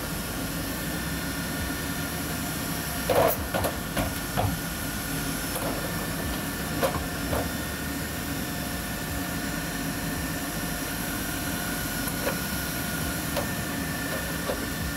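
Electric Atlas humanoid robot working, a steady hiss with a faint motor whine, broken by a few clunks and knocks as the engine cover it handles meets the metal storage rack. The loudest knocks come about three to four and a half seconds in, with lighter ones around seven seconds and near the end.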